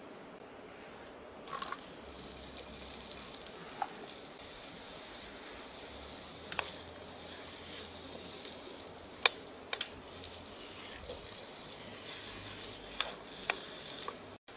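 Sliced onions sizzling in hot oil in an Excalibur Flypan, the hiss starting about a second and a half in. A few sharp taps sound as a wooden spoon stirs them against the pan.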